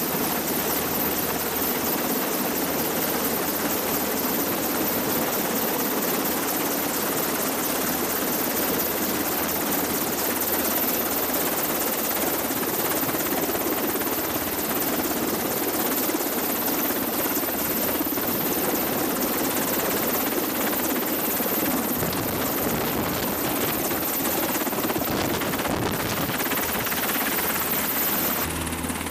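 Sikorsky UH-60 Black Hawk hovering low overhead with an external sling load: the steady, even noise of its rotors and twin T700 turboshaft engines. The sound changes abruptly just before the end.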